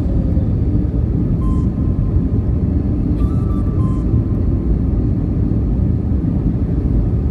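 Airbus A319 jet engines and airframe heard from inside the passenger cabin during takeoff, a loud steady low rumble. A few faint short tones sound above it.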